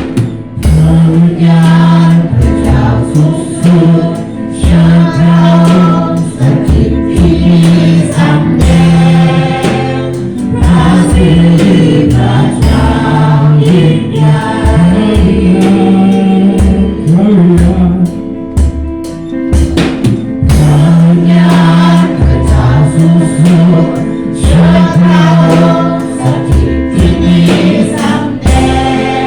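A group singing a Christian worship song with instrumental accompaniment: held low notes under the voices and a steady beat.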